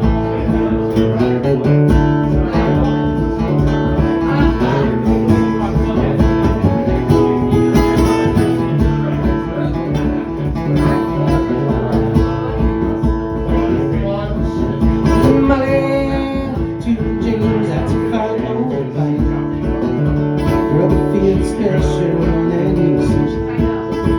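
Acoustic guitar playing a bluegrass-style instrumental intro with a steady picked and strummed rhythm, before any singing.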